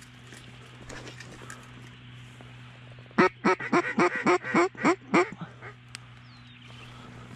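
A duck call blown in a run of about nine loud mallard-hen quacks, about four a second, over roughly two seconds, starting about three seconds in.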